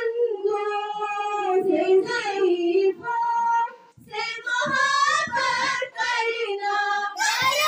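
A group of young schoolchildren singing together in unison, with long held notes and a brief pause about four seconds in.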